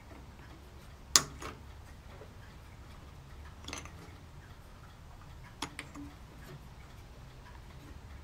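A few scattered light clicks and taps of small plastic model-kit parts handled on a workbench, the sharpest about a second in.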